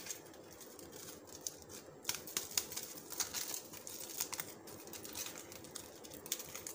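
Aluminium foil crinkling and crackling as it is peeled open by hand from around a roasted corn cob, in quick, irregular crackles.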